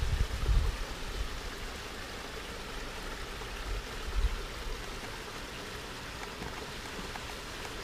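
Steady hiss of running water, with a few low thumps near the start and about four seconds in.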